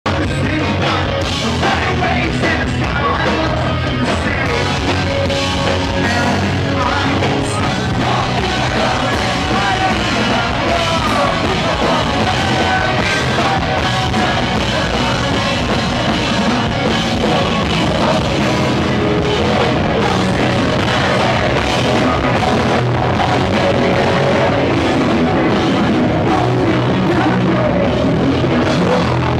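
Live pop-punk band playing loud, with singing over the band and drums.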